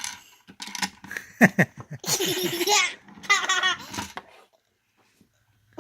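A young child laughing in several bursts over the first four seconds or so.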